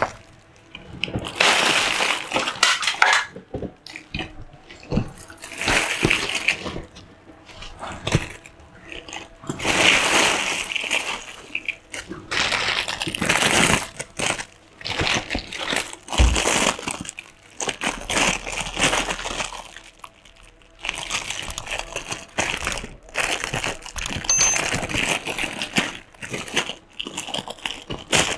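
Clear plastic toy bags crinkling and rustling in irregular bursts as packaged toys are picked up and handled.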